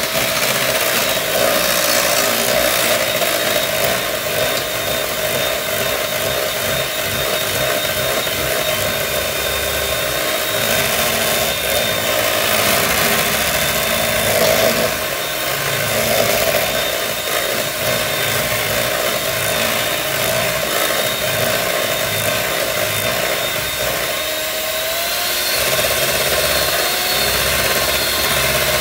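Handheld electric mixer running steadily, its beaters creaming a thick cream cheese, sugar and egg mixture in a metal bowl. Its whine rises slightly in pitch near the end.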